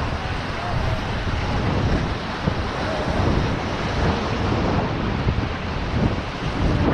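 Whitewater rapids of the Beas River rushing around a raft, a steady loud rush with heavy wind buffeting the microphone.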